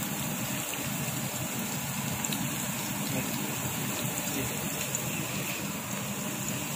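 Chopped onion and garlic sizzling steadily in oil in a frying pan.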